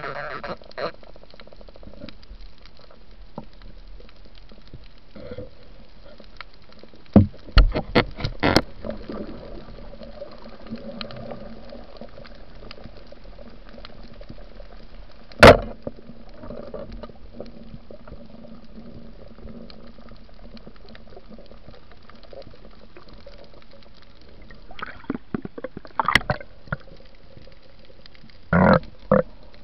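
Underwater sound on a diver's camera: a steady muffled water hiss with bubbling, broken by sharp clicks and knocks, a few together about a quarter of the way in, one loud one about halfway, and several more near the end.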